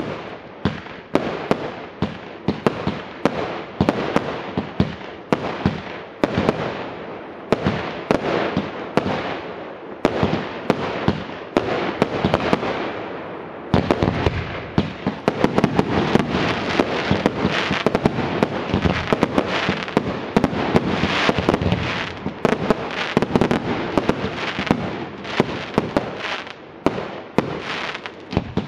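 Fireworks going off in quick succession: sharp bangs a few times a second, turning about halfway through into a louder, dense, near-continuous run of bangs and crackle.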